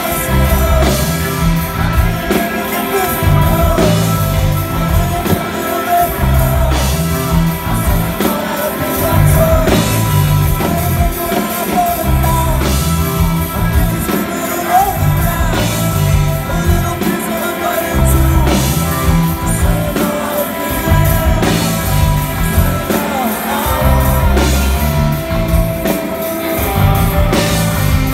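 Rock band playing live: a male lead vocal over electric guitars, bass and a drum kit, with a steady pulsing beat.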